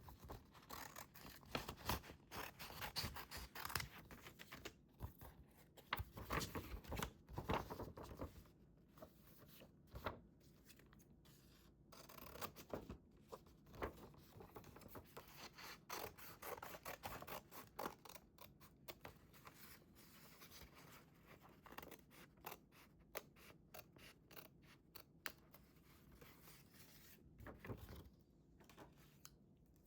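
Scissors cutting paper: runs of short, crisp snips in clusters, with quieter pauses between them.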